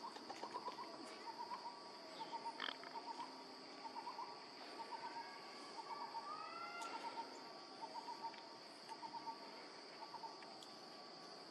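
Faint outdoor wildlife sounds: a steady high-pitched insect drone under short calls that repeat in quick groups of three or four about once a second, with a few rising whistles about halfway through.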